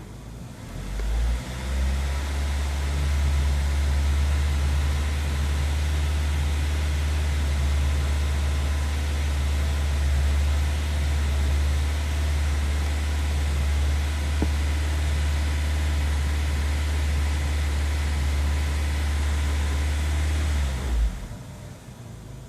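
1999 Honda CR-V's four-cylinder engine idling with a loud, steady low drone that sets in about a second in and drops away sharply near the end. The owner describes the idle as roaming, after a battery disconnect cleared the check-engine codes.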